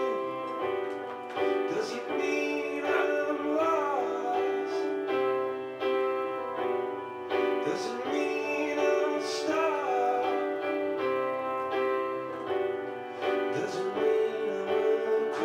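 Background music: a song with a singing voice over sustained keyboard chords.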